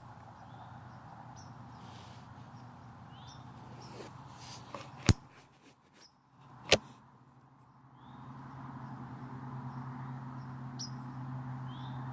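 Two sharp clicks about a second and a half apart near the middle, over a steady low hum and the short chirps of small birds.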